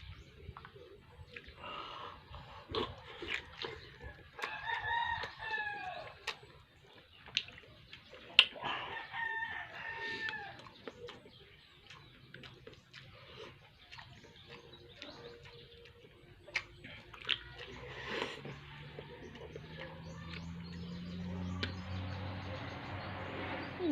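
A rooster crowing twice, each a long call of about two seconds that rises and then falls, over scattered small clicks. A low hum builds in the last few seconds.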